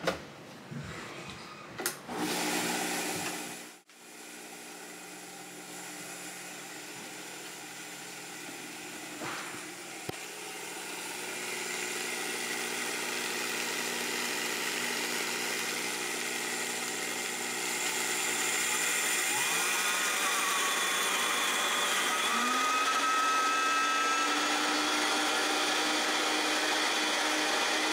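Vitamix blender motor running, grinding granulated sucanat (whole cane sugar) into powdered sugar. The run grows louder and its pitch rises twice past the middle as the speed is turned up, and it cuts off sharply at the end.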